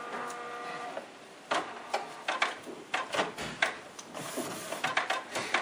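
Canon PIXMA MG2250 inkjet printer running its power-on initialisation: a steady motor whine for about the first second, then a series of clicks and clacks as the mechanism moves and the printer checks its cartridges.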